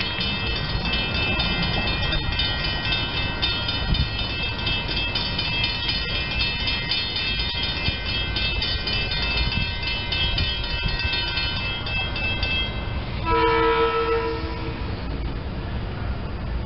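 SEPTA Silverliner electric commuter train approaching, running with a low rumble and a steady high whine. Its two-note horn cuts off just after the start and sounds again for about a second and a half near the end.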